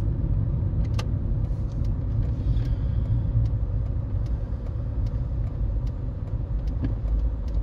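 Steady low rumble of a minivan driving, heard inside the cab: engine and road noise, with one sharp click about a second in.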